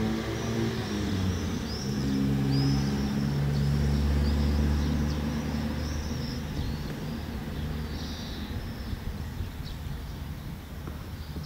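A low engine hum that swells to its loudest a few seconds in, then fades away by about the middle. Small birds chirp throughout.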